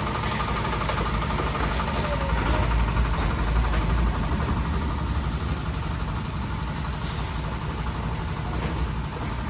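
An engine running steadily at a constant low speed.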